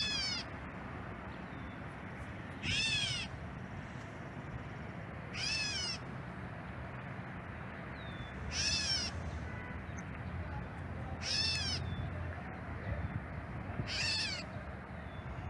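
A bird giving a whining call over and over: six short calls about every three seconds, each rising and then falling in pitch.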